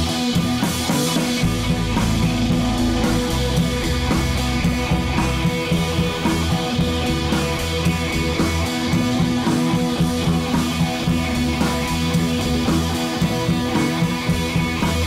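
Rock background music with electric guitar and drums.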